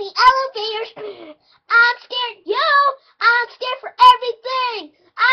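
A boy singing unaccompanied in a high voice, in short phrases with sliding pitch and brief breaks between them.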